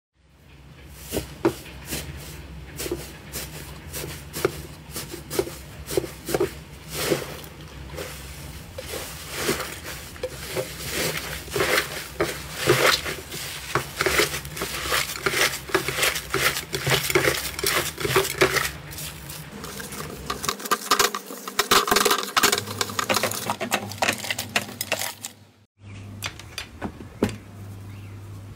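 Slime being squeezed and kneaded by hand, making many small sticky clicks and pops.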